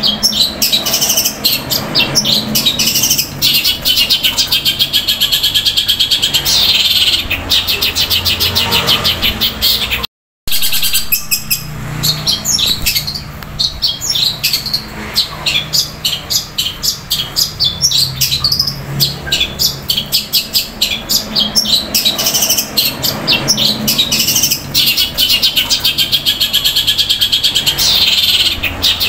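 Long-tailed shrike (cendet) singing a loud, long run of rapid chattering notes, mimicking the fighting calls of house sparrows in fast rolls. The song cuts out for a split second about ten seconds in.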